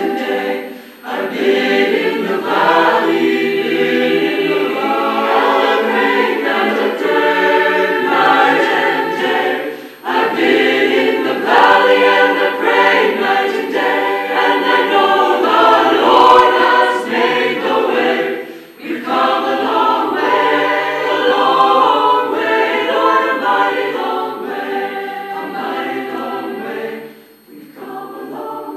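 Mixed choir of men and women singing a hymn a cappella, in long phrases with a short break between them about every nine seconds.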